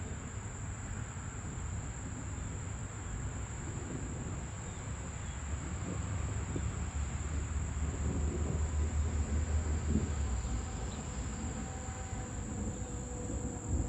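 Steady, high-pitched late-summer insect chorus of crickets. A low rumble swells and fades around the middle.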